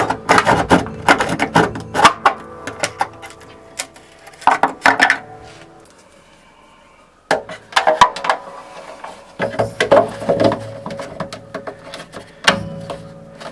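Acoustic guitar being handled after the cut: a run of sharp wooden knocks and clicks, with the guitar's strings ringing steadily beneath them. There is a quiet pause a little past the middle, then the knocking resumes.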